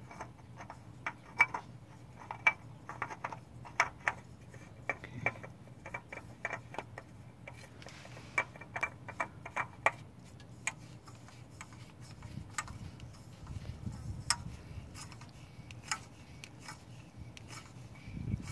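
A spin-on oil filter being turned by hand on its engine mount: light, irregular clicks and ticks as the hand grips and turns the metal can, several a second for the first half and sparser after.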